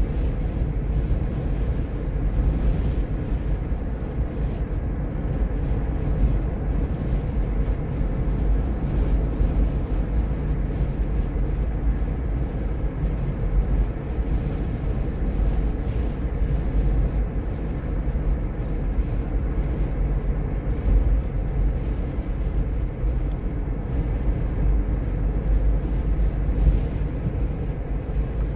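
Steady low rumble of a car driving along a paved road, heard from inside the cabin: engine and tyre noise.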